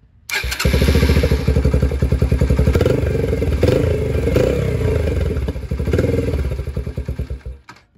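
Yamaha TTR-125 dirt bike's air-cooled four-stroke single-cylinder engine running with an even, rapid exhaust beat. It shuts off near the end, the firing slowing as it dies.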